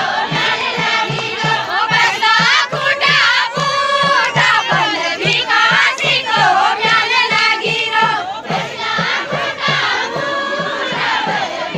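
A group of voices singing a Kumaoni chanchari folk song in chorus over a steady drum beat of about three beats a second.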